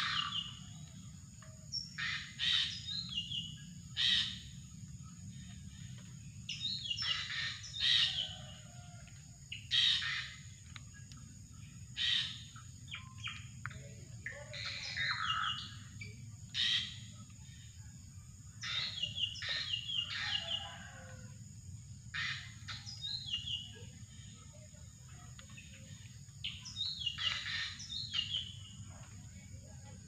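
Drongo calling: short clusters of quick chirping notes, some stepping downward, repeating every two seconds or so, over a steady high drone.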